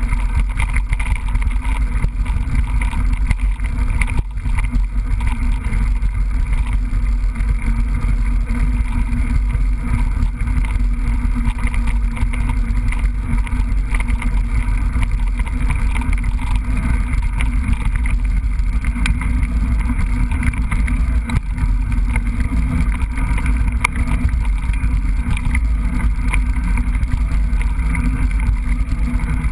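Steady wind rumble on an action camera's microphone while riding a mountain bike, mixed with the bike's rattles and small knocks over rough trail, which come as short clicks all the way through.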